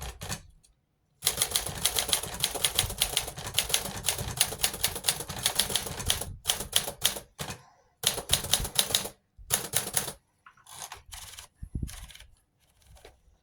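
Typewriter typebars striking the platen in quick keystrokes: a steady run of typing for about five seconds, then shorter bursts broken by pauses.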